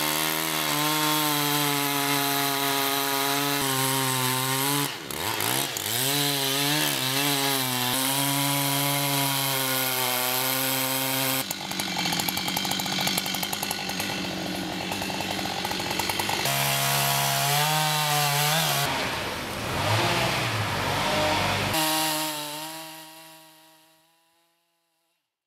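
Husqvarna two-stroke chainsaw running at high revs while carving into a fallen beech log, the engine note dipping and wavering about five seconds in, then fading out near the end.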